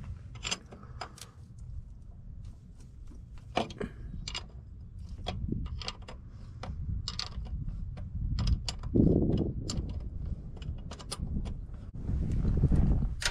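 Irregular metallic clicks and clinks of a hand tool, a socket worked against the 12-point starter mounting bolts, over a steady low rumble. A louder low rumble swells about nine seconds in and again near the end.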